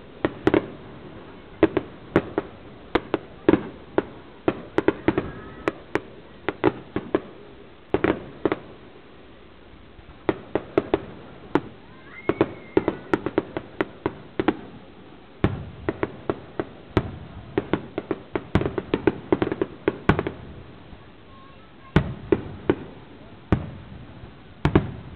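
Aerial firework shells bursting in quick, irregular volleys: many sharp bangs, several a second at times, with short lulls between volleys.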